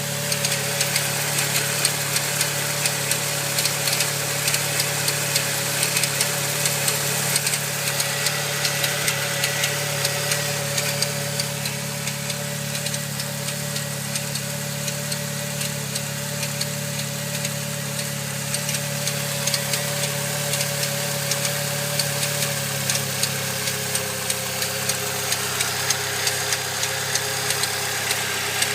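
Saab 9-3 2.0t turbocharged four-cylinder engine idling steadily, with a quick, regular clicking, a few clicks a second, over the running. The owner does not know what is causing the clicking.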